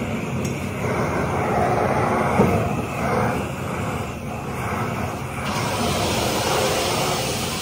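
Steady mechanical roar of running machinery, with a few faint knocks; the noise turns hissier about five and a half seconds in.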